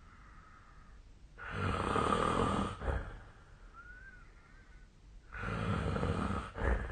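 A person snoring in their sleep: two long snores about four seconds apart, each ending in a short, sharp burst, with a faint brief whistle in the quiet between them.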